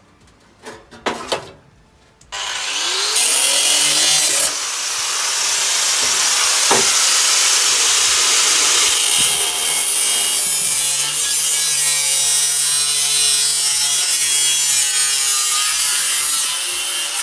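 A couple of knocks, then a power tool starting about two seconds in and running loud and steady under load through a cut, winding down at the end.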